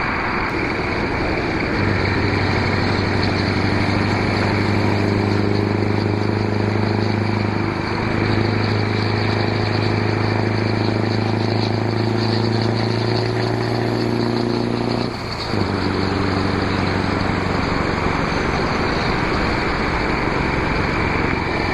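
Scania 143M 500's V8 diesel running steadily under load at motorway speed: a deep, even drone over wind and road noise. The note dips briefly about eight seconds in, creeps up slightly in pitch, and drops out for a moment about fifteen seconds in before picking up again.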